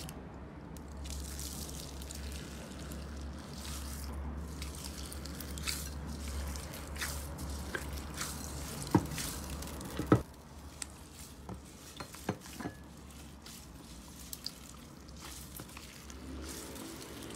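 Clear orange slime packed with small beads being squeezed and pressed by hand: wet squishing with many small clicks and pops, and two sharp pops about nine and ten seconds in.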